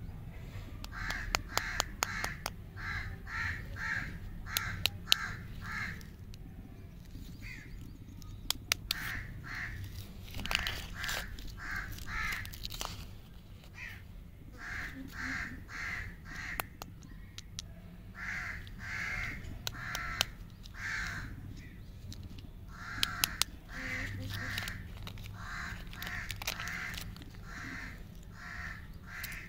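Crows cawing repeatedly in runs of several harsh calls, about two a second, with short pauses between runs. Over them come sharp clicks and crinkles of paper candy wrappers being handled and peeled open.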